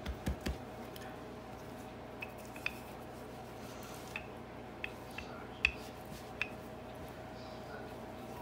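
Dumpling dough being patted flat by hand on a floured cloth, a few soft thumps, then rolled out with a wooden rolling pin, which makes scattered light clicks and taps. A faint steady hum runs underneath.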